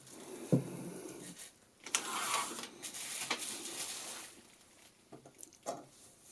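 Handling noise from a metal camera clamp mount being fitted: a sharp click, then a couple of seconds of rubbing and scraping, then a few light clicks near the end.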